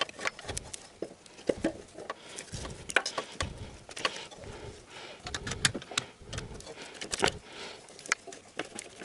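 Irregular metallic clicks, knocks and scrapes as a car alternator is worked by hand into its mounting lug and bracket.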